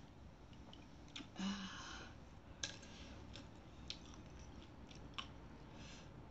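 Close-up eating sounds from a bowl of baso aci (tapioca meatball soup). A short slurp of broth from a spoon comes about a second and a half in, followed by chewing with a few faint sharp clicks.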